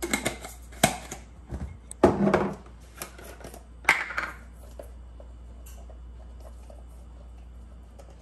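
Clinks and knocks of kitchen containers and utensils being handled on a countertop and around a steel mixing bowl while meat is seasoned. There are several sharp knocks in the first four seconds or so, then only a low steady hum.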